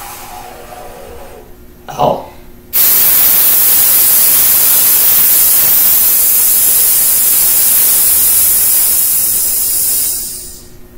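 A man hissing out a long, loud, steady "sss" breath for about seven seconds: the slow counted exhale of a breathing exercise. It starts suddenly about three seconds in and tails off near the end.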